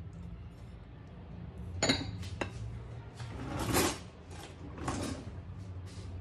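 Metal wire whisk clinking against a mixing bowl and swishing through thick, lumpy pancake batter. A sharp clink comes about two seconds in, followed by two longer swishing strokes, over a steady low hum.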